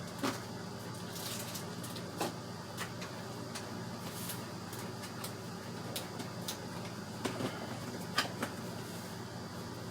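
Scattered light clicks and knocks of computer parts and their packaging being handled, over a steady low hum.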